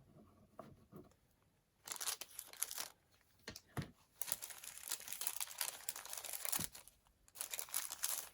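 Packaging crinkling and rustling as kit items are handled and unwrapped, in three stretches with short quiet gaps and a few sharp clicks.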